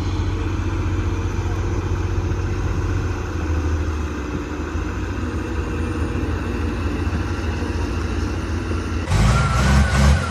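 Heavy-equipment diesel engine running at a steady, even pitch. About nine seconds in, the sound cuts to a louder engine whose level rises and falls.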